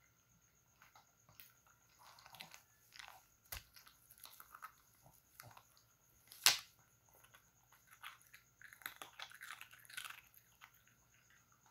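A small Shih Tzu–Pekingese mix dog chewing and crunching a small round Eggnog biscuit, with irregular crisp crunches, one sharp loud click about six and a half seconds in, and a quick run of crunches near the end.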